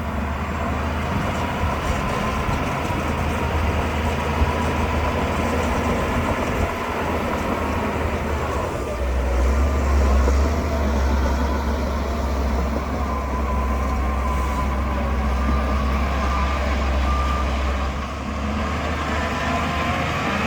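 Shantui DH17C2 bulldozer running steadily as it works. Its diesel engine hum grows deeper and louder from about nine seconds in, as under heavier load.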